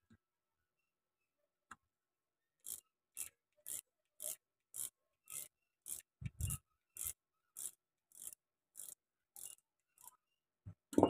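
Ratchet wrench worked back and forth on the 8 mm bolts of a motorcycle starter motor, with a short rasp on each back-swing, about two a second. A louder thump comes a little past the middle, and a knock near the end.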